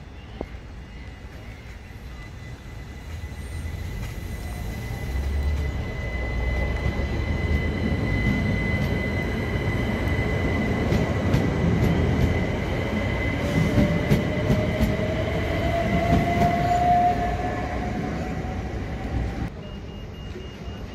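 Class 377 Electrostar electric multiple unit pulling away and passing close by, growing louder as it nears, with a steady high-pitched squeal and, later on, a whine rising in pitch as it picks up speed. The sound drops off abruptly near the end.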